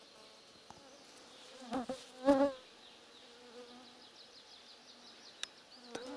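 A flying insect buzzing near the microphone, loudest in two close passes about two seconds in, its pitch wavering as it goes by. A faint steady hum carries on under the rest.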